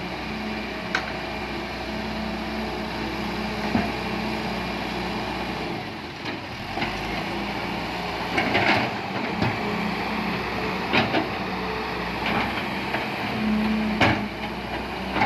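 Heavy diesel machinery running steadily, with intermittent sharp metallic clanks and knocks, the loudest a little before the end.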